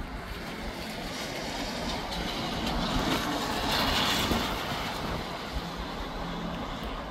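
Gusty wind rushing through palm and other trees, with wind buffeting the microphone. A gust swells about three seconds in and dies down a couple of seconds later.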